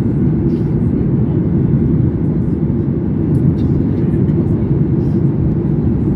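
Steady low roar of jet engines and airflow heard inside the cabin of a Gol Boeing 737 airliner in flight after takeoff.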